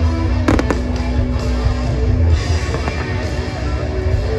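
Live rock music with guitar over a steady bass, with a firework bursting in a sharp bang about half a second in.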